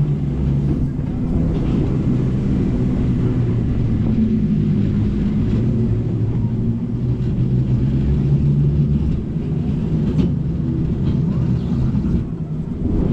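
Steady low drone of a running motor or engine, with a hum that wavers slightly in pitch.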